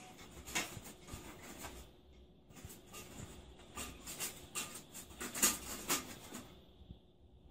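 Horizontal window blind slats clicking and rattling in short, irregular bursts as a cat pokes at them and pushes them apart, the sharpest clicks a little over five seconds in.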